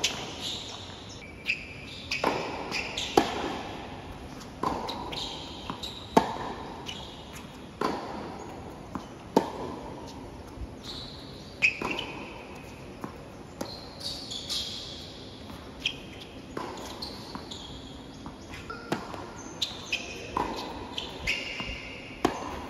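Tennis ball being struck by racket strings and bouncing on a hard court, a sharp pop every second or two through the rallies, with rubber-soled tennis shoes squeaking briefly on the court surface between shots.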